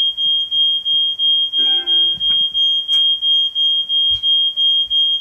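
Household smoke alarm sounding its high, piercing tone, pulsing about three times a second without a break. It is a false alarm: it keeps going off with no smoke or fire present.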